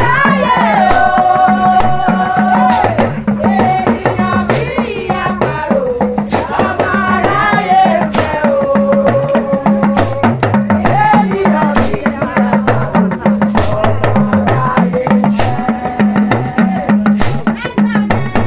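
Live traditional Nigerian cultural group music: voices singing long held, bending lines over a steady, evenly repeating drum beat. A talking drum struck with a curved stick adds sharp percussion strikes.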